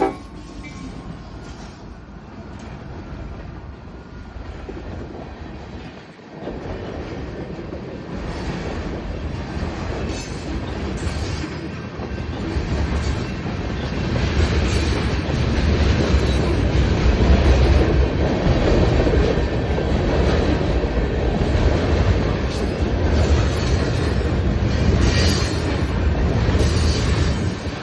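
A train rolling past on the rails, a steady noise that grows louder over the first half and then holds.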